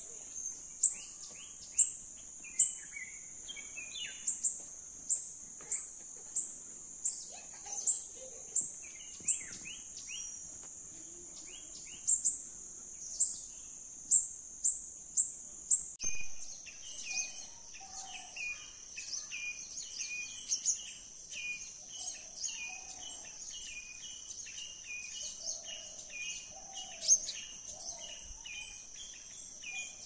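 Steady high-pitched insect drone with sharp high ticks about every 0.7 s, under small birds chirping in short phrases. About halfway through, a bird begins repeating a quick two-note chirp over and over, with lower calls mixed in.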